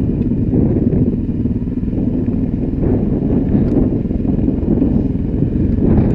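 Off-road motorcycle engine running steadily on a rough dirt track, heard close up from the rider's own bike as a dense low rumble, with a couple of faint ticks.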